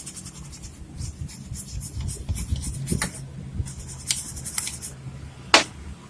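Scrubbing and rubbing on a circuit board's solder pads with cleaner, a run of short scratchy strokes, then a single sharp click about five and a half seconds in.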